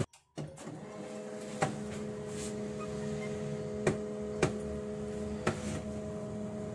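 Canon LBP2900B laser printer's motor running steadily as it initialises at power-on, with a few sharp clicks from its mechanism; it starts about half a second in. The printer powering up and running shows the power supply is working again after the capacitor and MOSFET were replaced.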